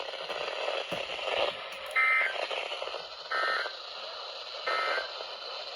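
NOAA Weather Radio's SAME end-of-message data burst, sent three times: three short, identical buzzy digital tone bursts about 1.3 seconds apart over radio hiss, marking the end of the severe thunderstorm warning.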